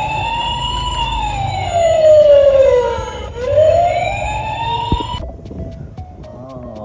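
Toy ambulance's electronic wail siren playing through its small speaker: one slow rise and fall in pitch, then rising again before it cuts off suddenly about five seconds in.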